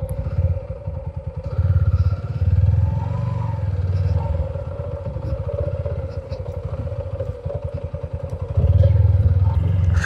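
Motorcycle engine running at low speed with a steady, fast low exhaust pulse, getting louder about two seconds in and again near the end as the throttle opens.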